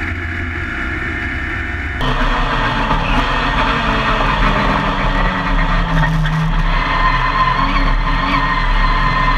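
In-cockpit sound of a classic Mini racing car's A-series four-cylinder engine running hard on track. About two seconds in, the sound switches abruptly to another car's cockpit, louder, with a deeper rumble and a steady high whine.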